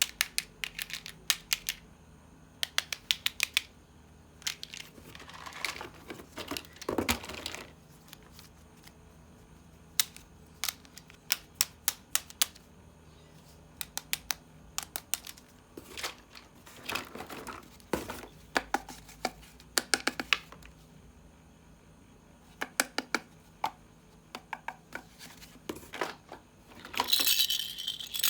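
Small hard plastic toy parts clicking and tapping in quick clusters as they are handled, with a few short rustles of packaging. Near the end a louder, continuous rattling begins.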